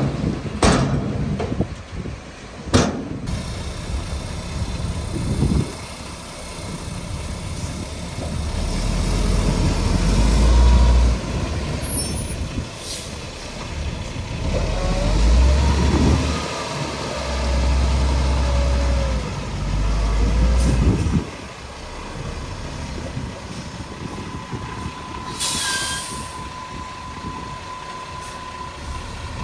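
Heavy diesel earthmoving machinery working, a bulldozer and a dump truck, with deep engine rumble rising and falling in waves. There are two sharp knocks in the first few seconds and a short burst of air-brake hiss near the end.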